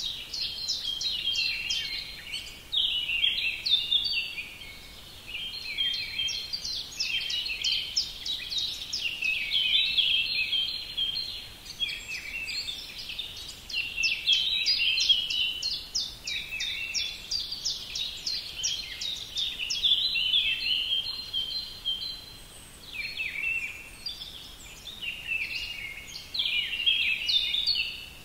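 Songbirds singing: fast, twittering phrases of high notes, one after another, with short pauses between phrases.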